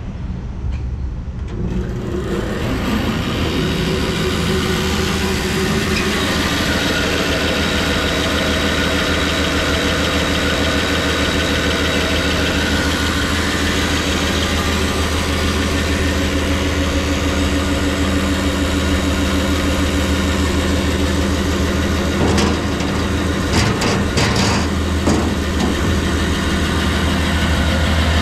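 Delta 28-651 Model 20 20-inch vertical band saw switched on: its single-phase motor starts about two seconds in and the saw runs steadily, blade and belt-driven wheels spinning. A few short knocks come near the end.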